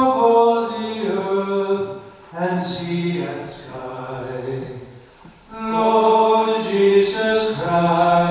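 A voice singing a slow hymn in long held notes, with short breaks between phrases about two and five seconds in.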